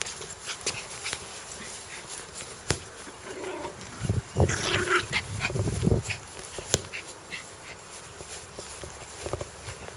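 Dog growling in one short burst about four seconds in, lasting about two seconds, with scattered light clicks around it.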